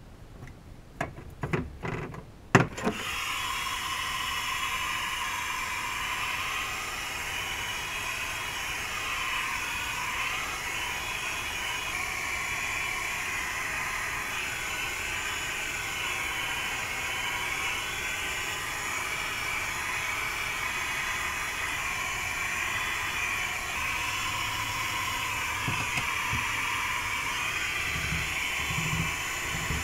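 Handheld electric heat gun blowing hot air onto a sheet of Dynamat sound deadener. A few clicks and knocks come first; then, about three seconds in, the gun comes on and runs with a steady rush of air, with a few soft bumps near the end as the mat is pressed down.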